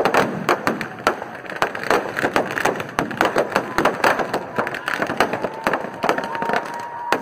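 Firecrackers packed inside a burning effigy going off in a dense, irregular string of sharp cracks and bangs. A thin steady whistle sounds over the last couple of seconds.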